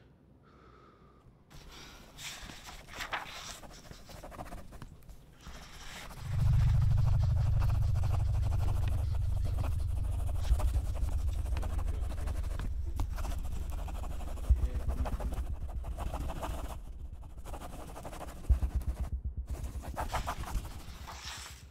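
Strained panting breaths and gasps. About six seconds in a deep low rumble sets in suddenly and keeps going, throbbing in quick pulses toward the end.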